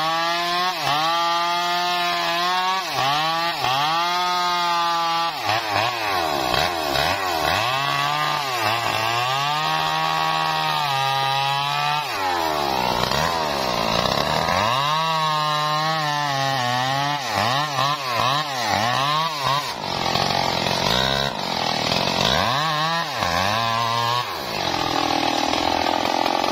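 Stihl MS 382 two-stroke chainsaw bucking a felled trunk. Its engine note sags each time the chain bites into the wood and climbs back to high revs, over and over. Near the end the pitched note gives way to a rougher, noisier sound.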